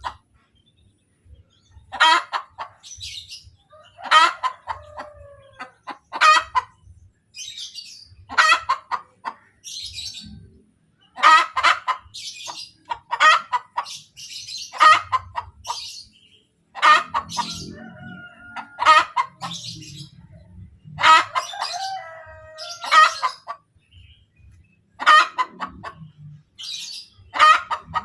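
Domestic hen cackling after laying an egg: a loud call repeated about every two seconds, with fainter high-pitched calls in between.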